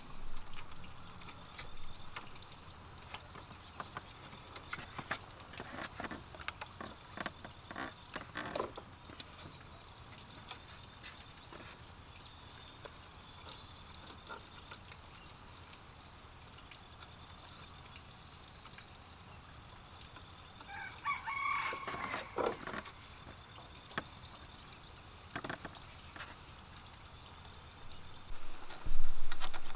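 Scattered taps and clicks of bamboo poles and strips being handled and tied by hand, with a rooster crowing once about two-thirds of the way in. A loud thump comes near the end.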